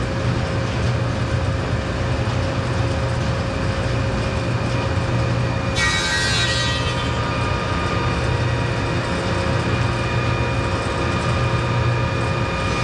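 Grizzly G0453Z spiral-cutterhead thickness planer running steadily. About six seconds in, a cherry board reaches the cutterhead and the cut sets off a sudden high whine that fades within a second. The cutting whine picks up again at the very end.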